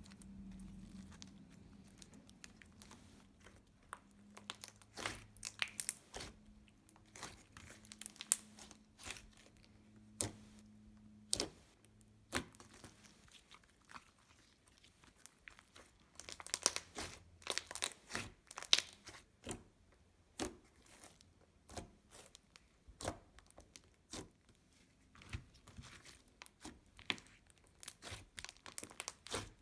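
Slime being squished, stretched and pressed in the hands, giving irregular sticky clicks, crackles and small pops in clusters.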